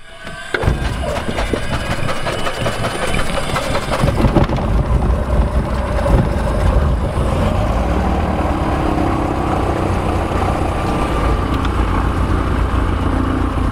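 A single-engine Cessna's propeller engine running on the ground, heard from inside the cabin as a steady low drone. It comes in abruptly about half a second in.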